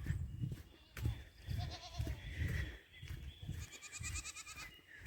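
Dairy goats bleating: a short wavering bleat about a second and a half in and a longer quavering one near the end, over repeated low thuds.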